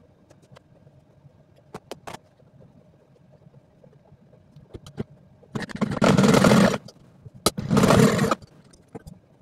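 Domestic sewing machine stitching fabric in two short runs, the first a little over a second long and the second just under one second, after a few light clicks.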